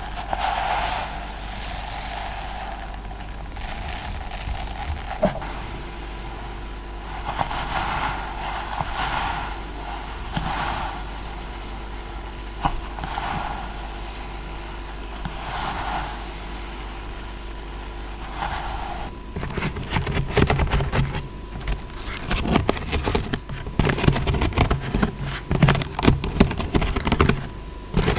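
ASMR scratching in slow, repeated strokes about every second and a half. About two-thirds of the way through it changes to fast, irregular tapping.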